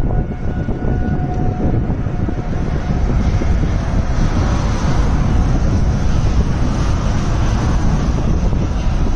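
Strong storm wind buffeting the microphone: a loud, steady rush that is heaviest in the lows, with hiss above it growing a little brighter about three seconds in.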